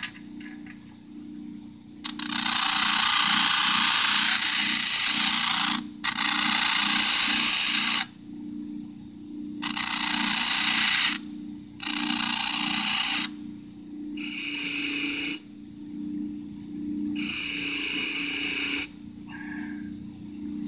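Power-driven wire wheel spinning with a steady motor hum, as a steel bolt head is pressed against it in four loud, hissing bursts of a few seconds each, wearing metal off. Two shorter, softer touches follow near the end.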